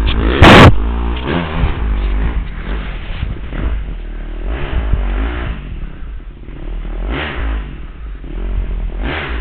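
ATV engine running, its pitch rising and falling again and again as it is revved. A sharp, very loud crack comes about half a second in, over a steady low rumble.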